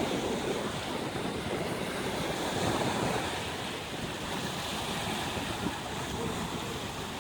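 Small sea waves washing on the shore in a steady wash of surf, with wind buffeting the microphone.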